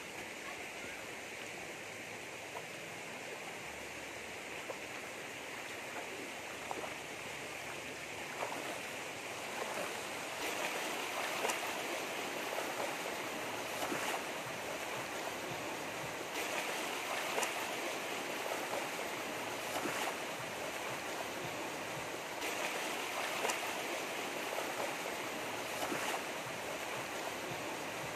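A rocky forest stream rushing steadily over rapids, growing louder about ten seconds in, with a few faint clicks over it.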